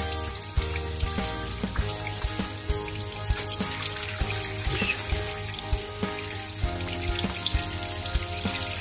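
Kitchen tap running steadily over small gutted horse mackerel held in the hands and splashing into a stainless steel sink as the fish are rinsed out. Background music with changing notes and a steady beat plays throughout.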